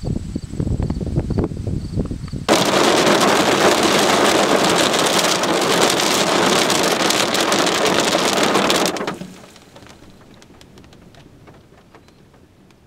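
Gusts of wind buffet the microphone, then about two and a half seconds in a heavy downpour suddenly starts beating on the car's roof and windshield. The rain stops abruptly about nine seconds in.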